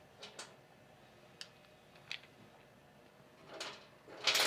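Terminal insulators being set onto a compressor's terminal studs: a few faint light clicks, then a louder clatter near the end.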